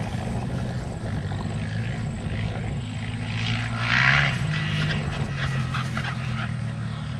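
Honda XR600 dirt bike's single-cylinder four-stroke engine running as the bike rides past, loudest about four seconds in as it passes closest.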